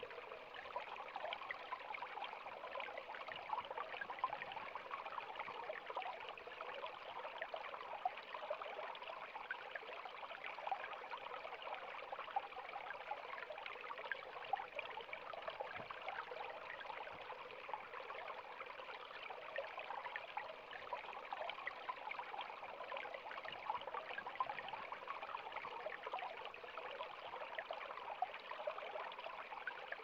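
Shallow stream flowing over rocks, a steady gentle rush of water with many small trickling splashes.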